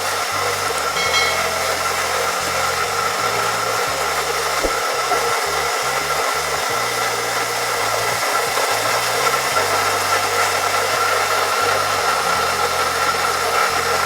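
Handheld blow dryer running steadily on its warm setting, a continuous whooshing of air with a steady whine, drying lace glue.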